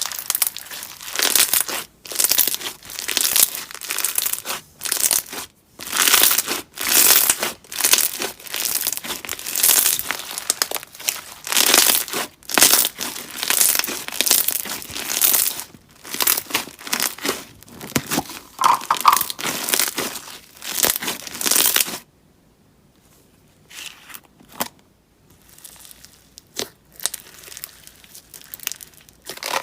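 Slime being squeezed, stretched and pressed by hand, making irregular bursts of noise in quick succession. The bursts stop about 22 seconds in, leaving only a few faint clicks.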